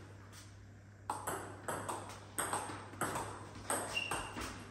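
Table tennis rally: the ball clicks off the paddles and the table about twice a second, starting about a second in after a short pause for the serve.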